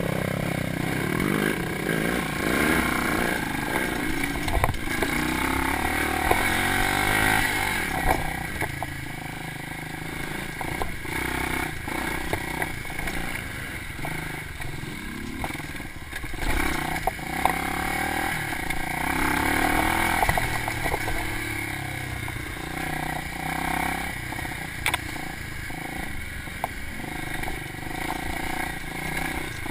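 Dirt bike engine revving up and down through the throttle while riding slowly over a rough trail, with scattered knocks and clatter as the bike jolts over the ground.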